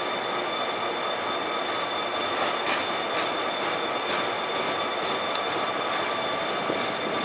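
Korail diesel locomotive and passenger coaches at a station platform: steady high whining tones over a dense rumble, with scattered sharp clicks of wheels on the rails, most of them midway through.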